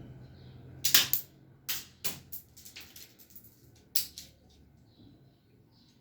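Plastic clicks and clatter from a Lego-built pistol's mechanism: a sharp snap about a second in, two more clicks shortly after, a run of smaller ticks and taps, then another sharp click about four seconds in.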